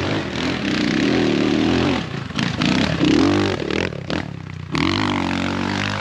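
X Pro Templar 250's air-cooled single-cylinder four-stroke engine revving up and easing off under load on a dirt hill climb, with the throttle briefly closed about two seconds in and again around four seconds in.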